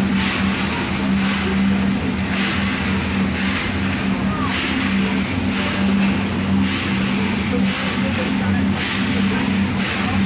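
Paddle steamer's steam engine running: a steady hum with a rhythmic hissing swish about once a second as the crankshaft turns.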